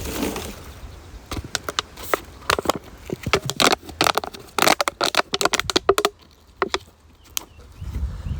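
Litter being picked up and handled: quick irregular crackling and crunching of plastic and debris, easing off about six seconds in.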